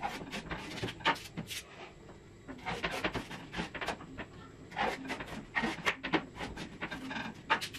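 Kitchen knife cutting through a banana stem on a wooden chopping board: irregular crisp snaps and knocks as the blade goes through the fibrous layers and meets the board.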